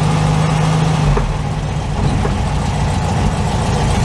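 1964 VW Beetle's air-cooled 1500cc flat-four engine running, with a steady hum that stops about a second in.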